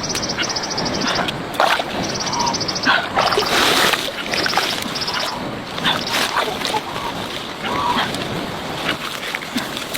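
Water splashing and sloshing in a river, with irregular sharp splashes, and a high pulsing trill coming in short bursts during the first half.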